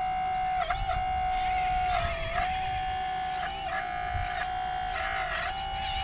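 Hydraulic pump motor of an RC excavator whining steadily, its pitch dipping briefly a few times as the hydraulics take load.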